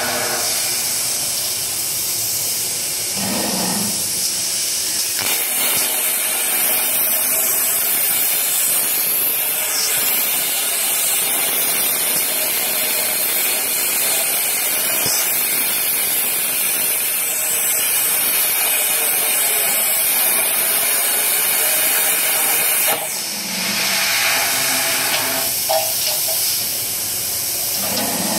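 Plasma torch on a CNC tube cutting machine hissing steadily as it cuts rectangular steel tube. The hiss changes character about five seconds in and again about five seconds before the end, as the cut starts and stops.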